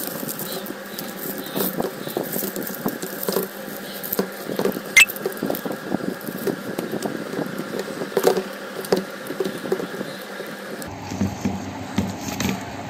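Dry broom stalks rustling and clicking against each other while nylon cord is wound and pulled tight around the bundle. There are many small irregular crackles, with a sharper click about five seconds in.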